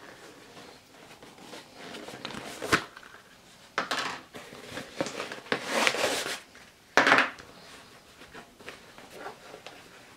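Handling noise from a running shoe being turned over in the hands: rustling and rubbing, a sharp tap a little under three seconds in, and louder scrapes about four, six and seven seconds in.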